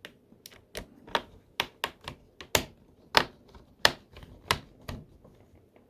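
Irregular sharp clicks and taps, about fifteen in all, from hands working on the plastic laptop casing.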